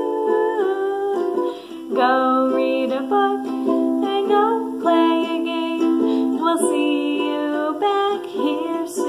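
A woman singing a simple children's song while strumming chords on a ukulele.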